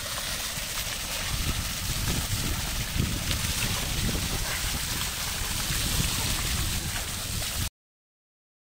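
Heavy stream of water gushing from a tubewell outlet pipe and splashing onto a person's back and a concrete channel, a steady rushing splash that cuts off suddenly near the end.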